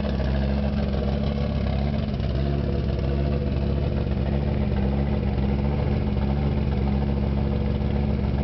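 Car engine idling steadily through a 4.5-inch open exhaust, a low, even rumble with no revving.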